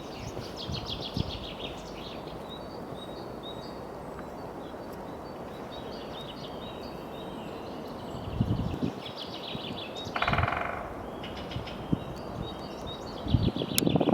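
Great spotted woodpecker striking dry wood, with one rapid burst of taps lasting about a second past the middle. Small birds chirp steadily, and a few low thumps come before and near the end.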